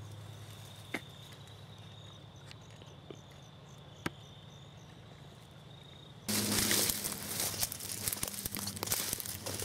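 Hushed outdoor quiet with a faint steady high tone and a few soft clicks, then, about six seconds in, loud rustling and crunching suddenly starts: footsteps pushing through dry field vegetation close to the microphone.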